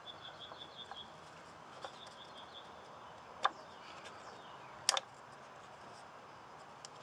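A small bird chirping in quick high runs of notes, about eight a second, twice in the first few seconds. Sharp clicks stand out louder, once about three and a half seconds in and a double click about five seconds in.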